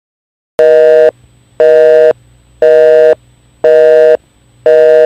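Telephone busy tone: five identical beeps about one a second, each half a second long, signalling that the dialled line is engaged.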